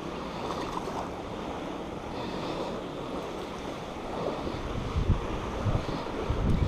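Wind blowing on the microphone over the steady wash of water, with low rumbling gusts growing stronger in the last couple of seconds.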